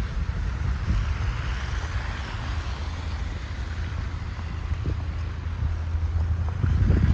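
Blizzard wind buffeting the microphone as a heavy, fluctuating low rumble under a steady hiss of wind-driven snow, swelling briefly near the end.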